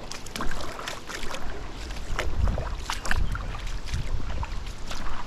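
Water splashing and sloshing in a shallow stream, with wind rumbling on the microphone and scattered sharp clicks and knocks.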